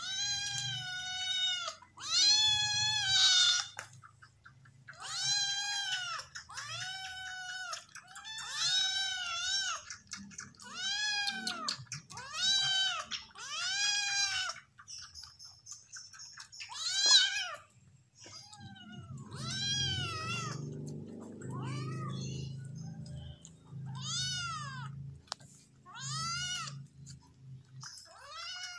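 Kittens meowing over and over, short high arched calls about one every second or two, with one sharper, louder call past the middle; they are hungry kittens crying for milk from a feeding bottle.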